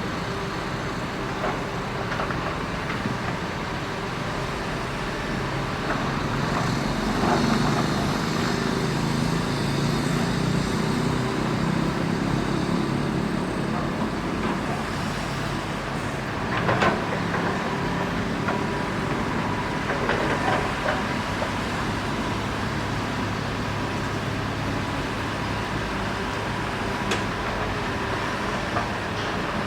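Heavy diesel engines of an excavator and dump trucks running steadily, louder for a stretch in the first half as the machine works harder. A few sharp knocks or clanks cut in around the middle and near the end.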